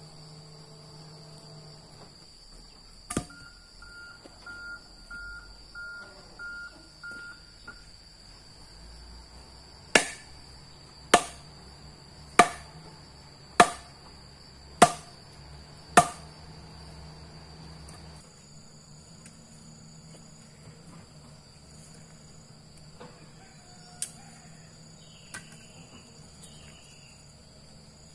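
Six sharp, evenly spaced tool blows, a little over a second apart, over a steady high chirring of insects. A single knock comes about three seconds in.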